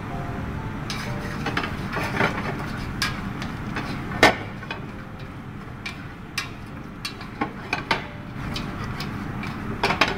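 Wooden spatula stirring chicken, potatoes and onions in a stainless steel pan, knocking and scraping against the pan at irregular intervals, the loudest knock about four seconds in, over a steady low background noise.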